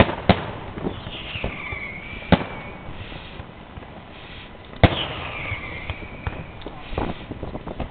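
Fireworks exploding: three loud sharp bangs a couple of seconds apart among smaller pops, with a high tone falling away after the first two bangs.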